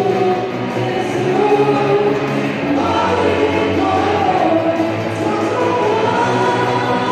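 Congregation singing a Mara-language gospel worship song together, many voices in unison over a live band with keyboard and guitar.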